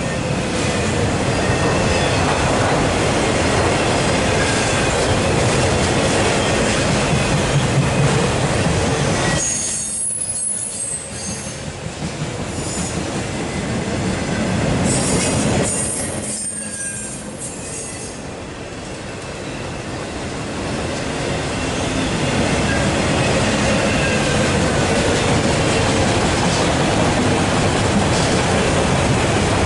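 Empty autorack freight cars rolling past on jointed-free main line track: a steady rumble and rattle of steel wheels on rail, with faint thin wheel squeals. The noise dips briefly twice, about ten and seventeen seconds in.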